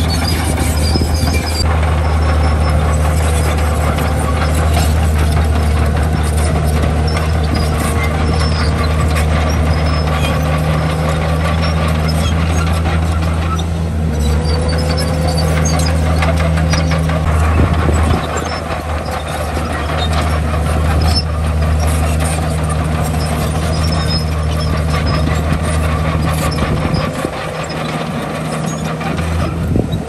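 Heavy diesel earthmoving machinery (a Komatsu bulldozer working with dump trucks) running steadily with a deep engine drone. The drone eases off briefly about eighteen seconds in and drops again near the end.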